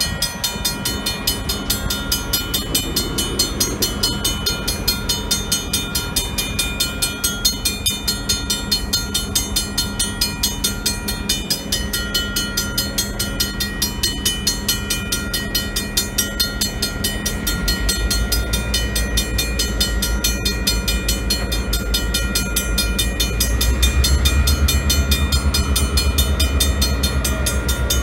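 Grade-crossing warning bell ringing steadily and rapidly over the engine of an EMD GP38-2 diesel locomotive (a 16-cylinder two-stroke 645) at the crossing. The locomotive's low engine throb grows louder from about two-thirds of the way in.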